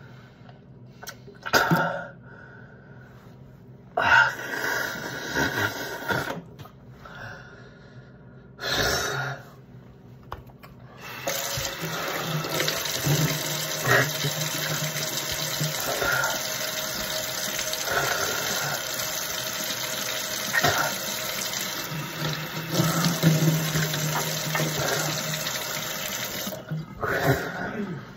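Kitchen faucet running into a stainless-steel sink, a steady rush that starts about eleven seconds in and stops near the end, while a man cups the water to rinse his burning mouth. Before the tap opens there are a few short, separate bursts of breath or spitting over the sink.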